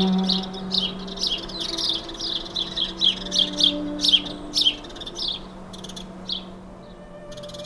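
Sparrows chirping in a quick run of short, overlapping calls that thin out after about five seconds.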